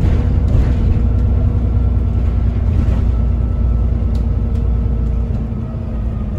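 Inside a moving bus: steady low rumble from the engine and the road, with a faint steady whine. A couple of light clicks come about four seconds in, and the rumble eases slightly near the end.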